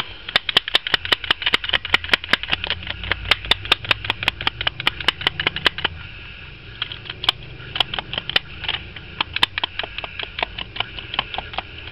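Hair straightener repeatedly clamped shut on a sheet of EVA foam, its plates clicking about five times a second, then more slowly and unevenly in the second half. This is the foam being heated so it can be pressed into a mould.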